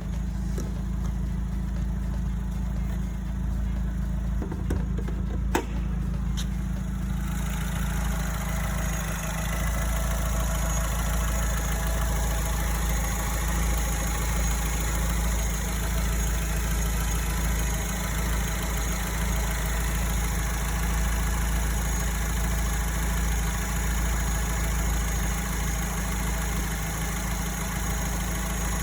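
Alfa Romeo 159 engine idling steadily, in a car that has developed a rattling noise from the engine bay. There is a sharp click about five and a half seconds in. From about seven seconds the higher-pitched mechanical noise grows louder and stays that way.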